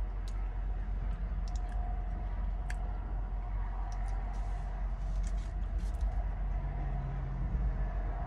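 Steady low rumble inside a semi-truck cab, with a few faint short clicks scattered through it.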